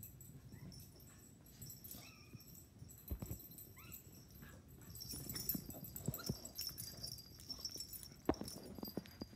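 Beagle puppy giving a few short, high whimpers and yips while play-fighting with a cat, over soft scuffles and knocks of paws and bodies on carpet; a sharp knock comes near the end.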